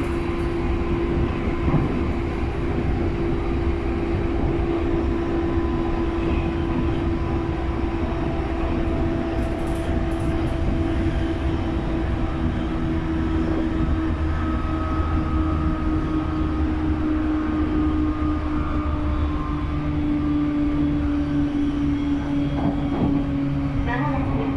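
Running sound of a JR East E531 series electric train heard from inside the car: a steady rumble of wheels on rail under a continuous motor whine whose pitch slowly falls.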